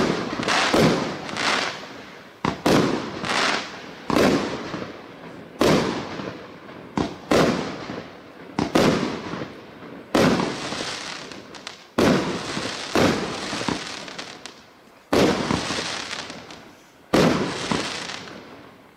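A 1-inch, 19-shot consumer firework cake firing shot after shot, about one every one to two seconds. Each shot is a sharp bang followed by a fading crackle as the red comet-tailed shell bursts overhead.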